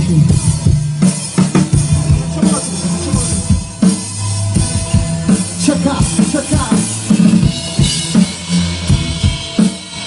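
Live band playing an instrumental passage without vocals: a drum kit's bass drum and snare hits over steady bass and electric guitar.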